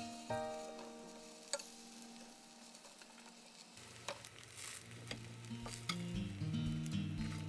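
Gentle background music that thins out, then comes back with a bass line about four seconds in. Under it are a soft rustle and a few sharp clicks of a utensil stirring food in a bowl.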